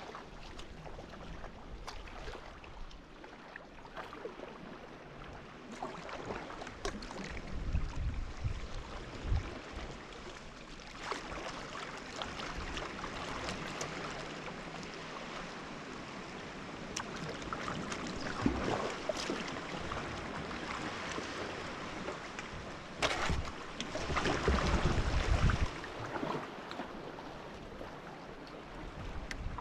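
Kayak being paddled on the sea: water splashing and lapping around the paddle and hull. Gusts of wind buffet the microphone a few times, the longest near the end.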